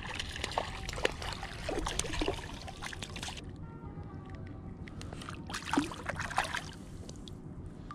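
Water splashing and dripping as a small European sea bass is unhooked by hand in shallow water, with a sharp splash a little before six seconds in as the fish is dropped back and swims off.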